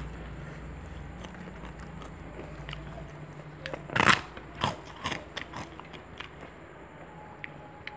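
Close-up eating sounds: a person chewing and biting food, with a burst of sharp crunches and clicks about four to six seconds in, the loudest just after four seconds.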